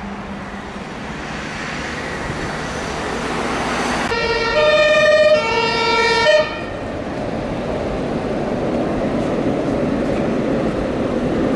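A German fire engine's two-tone siren (Martinshorn) sounds about two alternating low-high cycles for roughly two seconds, then cuts off abruptly. Underneath and after it, the truck's engine runs with street traffic.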